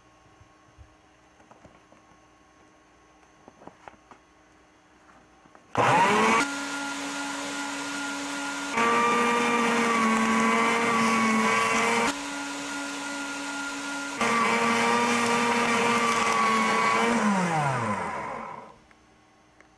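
Electric paper shredder: a few faint clicks of paper handling, then the motor starts suddenly about six seconds in. Twice it gets louder and dips slightly in pitch while sheets are fed through and cut. Near the end it winds down with a falling pitch.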